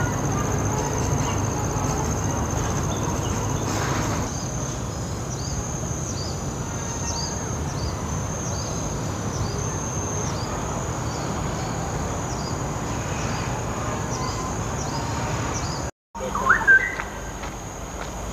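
Insects calling in a steady high-pitched drone, with small repeated chirps through the middle, over a low steady rumble of wind and distant traffic. Near the end a bird gives a few loud short chirps.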